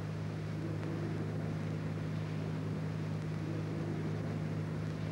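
Steady low hum with a soft hiss over it, unchanging throughout: the background drone of an old film soundtrack.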